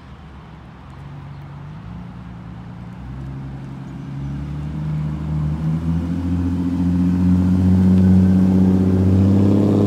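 Ford Explorer Sport Trac's 4.0-litre V6 running through an aftermarket Magnaflow exhaust as the truck drives up at low speed. Its low, steady exhaust note rises a little in pitch partway through and grows louder as the truck comes close and passes.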